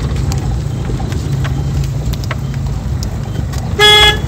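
Steady low rumble of a car running, heard from inside the cabin, with a short, loud beep near the end.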